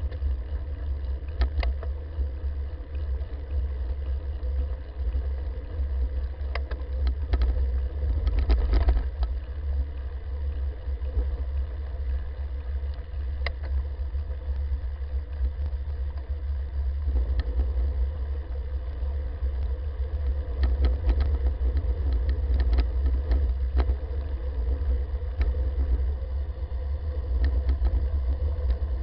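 Steady low rumble of wind and road vibration on a bike-mounted camera's microphone while a recumbent bicycle rolls along asphalt, with scattered clicks and rattles.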